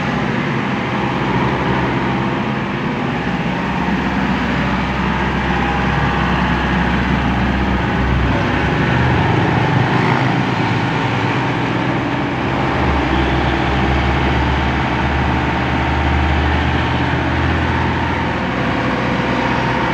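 Komatsu PC75UU-3C compact excavator's diesel engine running steadily while the boom and arm are worked, its low note swelling and shifting about a third of the way in and again later.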